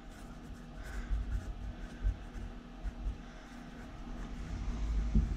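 Felt-tip Sharpie marker writing words on paper, with faint, irregular scratching strokes of the tip.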